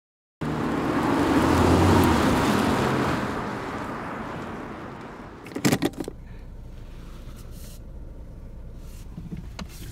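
Car noise that swells and then fades over the first five seconds. A few sharp clicks and knocks follow about six seconds in, then a low steady rumble.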